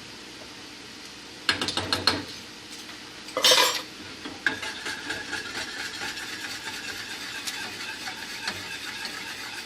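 Metal utensils clattering against a pot, with a short louder scrape about three and a half seconds in. Then a spoon stirring in the pot with a steady run of quick light ticks.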